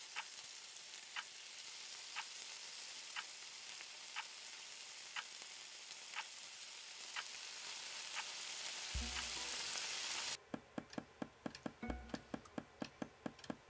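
Film sound design: a steady hiss swells slowly under a clock ticking about once a second, with a low boom near nine seconds in. Just after ten seconds the hiss cuts off abruptly and a faster ticking rhythm with low pulses takes over, the start of the music score.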